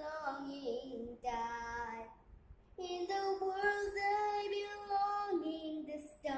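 A young girl singing: short sung phrases, a brief pause about two seconds in, then one long held note that slides down in pitch near the end.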